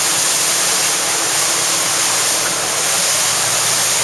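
Loud, steady rushing of wind and water spray around a boat on open, choppy sea.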